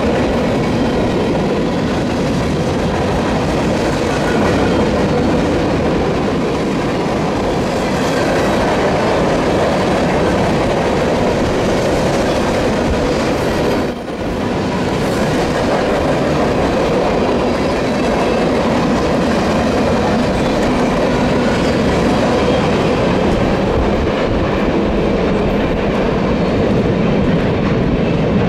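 A train rolling past at close range, the wheels of its cars clicking over the rail joints in a steady clickety-clack, with a brief dip in loudness about halfway through.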